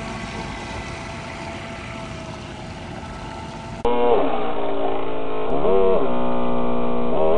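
Electric RC scale model speedboat running on the water: a steady electric motor whine over water noise. After an abrupt cut a little under four seconds in, a louder, duller electric motor whine speeds up, holds and drops back, three times.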